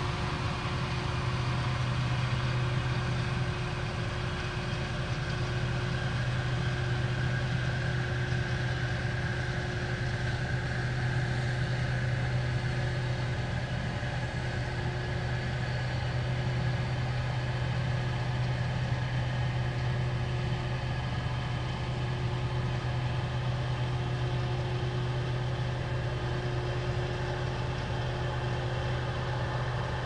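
An engine running steadily: a constant low hum with a few faint, steady higher tones and no change in speed or load.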